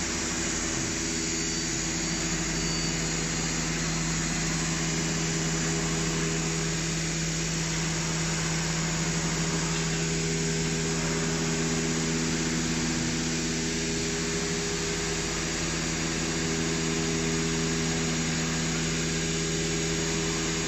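A running CNC router: a steady mechanical drone with several held tones over an even hiss, unchanging throughout.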